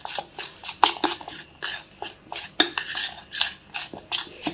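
A utensil stirring thick flour-and-egg batter in a stainless steel bowl, scraping and clinking against the metal in quick strokes, about four a second.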